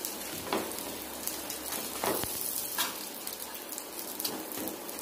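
Bun parottas frying in a little oil on a dosa tawa over low heat: a steady crackling sizzle. A steel spatula lightly taps and scrapes against the pan a few times.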